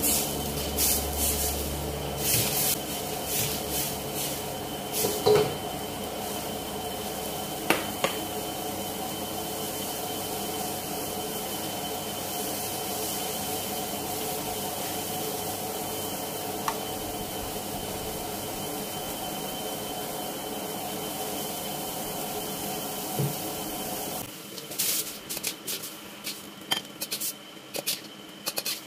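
A steel ladle knocks and scrapes against a wok a few times in the first several seconds, over the steady hum and hiss of a lit gas wok burner. Near the end the hum stops and a run of lighter clicks and taps follows.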